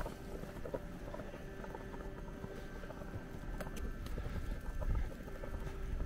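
Footsteps crunching through fresh snow as someone walks, over a low rumble.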